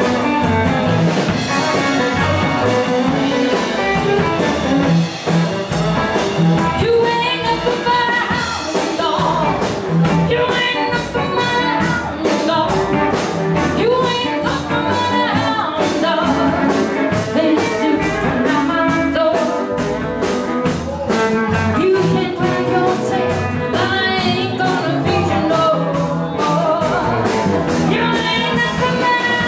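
Live rock and roll band playing loud and steady, with electric and acoustic guitars, a drum kit keeping a steady beat, and saxophones, while a woman sings lead in phrases that come and go.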